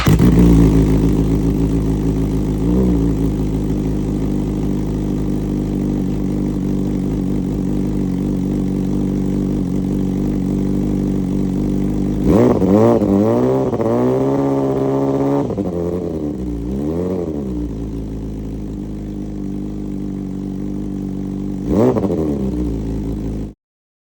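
BMW S1000RR inline-four motorcycle engine idling through a slip-on exhaust, with throttle blips. There is a short blip about 3 s in, a longer rev about 12 s in that rises, holds for about three seconds and falls back, and quick blips around 17 and 22 s. The sound cuts off abruptly near the end.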